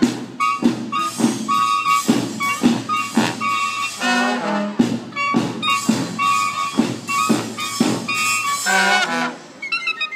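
Brass street band playing a march: drum strokes keep a steady beat about twice a second under short held trumpet and trombone notes and a low sousaphone line. The band thins out briefly near the end before a quicker passage starts.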